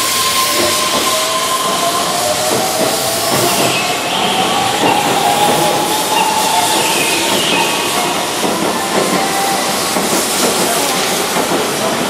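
Keihan 13000 series electric train pulling out along the platform: the whine of its inverter-driven traction motors rises slowly as it gathers speed, over a steady rushing hiss and the clatter of its wheels over the rails.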